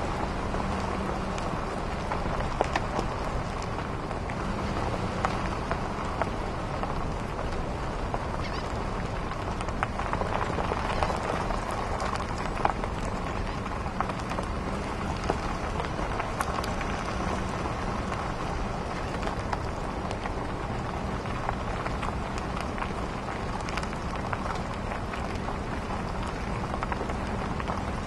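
Vehicle rolling slowly over a rough dirt road: steady road rumble with scattered small rattles and clicks, over a faint low engine hum.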